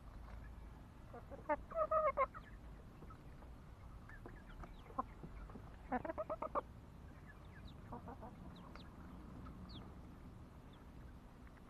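Chickens clucking: two short bursts of quick, repeated clucks, about two seconds in and again about six seconds in, with a few softer single clucks between.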